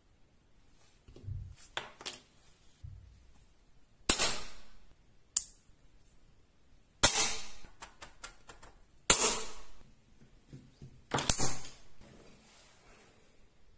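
Rectangular neodymium block magnets snapping together and onto a steel sheet: sharp metallic clacks at irregular intervals, four loud ones a couple of seconds apart with lighter clicks in between, each with a short ringing tail.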